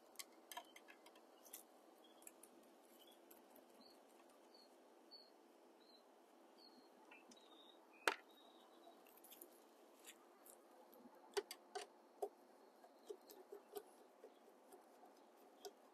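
Near silence broken by faint hand-tool handling: scattered light clicks and taps of a screwdriver on a plastic EV charger housing as its mounting-bracket screws are taken out. There is one sharper click about eight seconds in and a run of faint high chirps in the middle.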